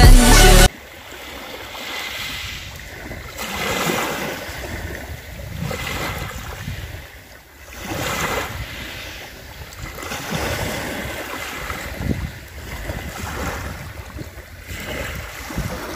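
Small waves breaking and washing up on a pebble beach, the surf swelling and falling back every couple of seconds, with wind rumbling on the microphone. Loud music cuts off abruptly under a second in.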